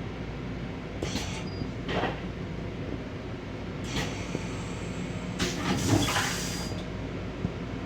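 Steady hum of an M7 electric railcar heard from inside the car, broken by several short rattling, hissy bursts and one longer burst near the end.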